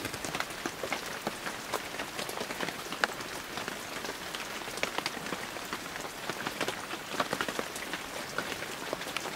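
Rain falling: a steady hiss dotted with many sharp individual drop hits.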